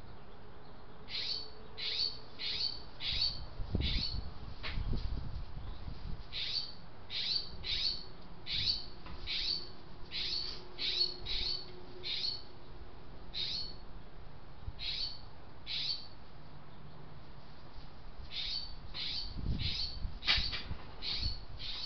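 A small bird calling over and over: short high chirps in runs of several, about three a second, with pauses between the runs. A couple of brief low rumbles come about four seconds in and again near the end.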